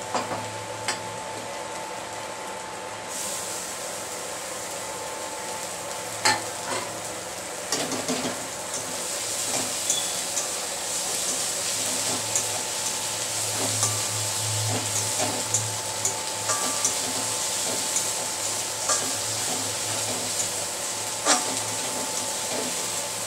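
Chopped onion, ginger, garlic and green chillies sizzling in hot oil in a metal kadai while a metal spatula stirs and scrapes, with scattered knocks of the spatula against the pan. The sizzle thickens a few seconds in and grows louder after several seconds.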